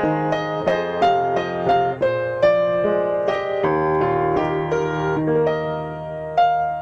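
Piano-keyboard accompaniment with no voice, playing a run of notes in the closing bars. About six seconds in, a final chord is struck and left to ring.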